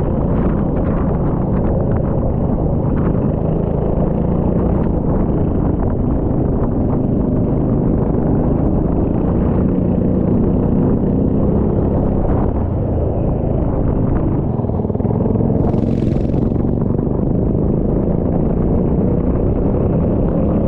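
Rental kart engine running under racing load with a rumble of noise, its pitch rising and falling with speed. There is a brief hiss about sixteen seconds in.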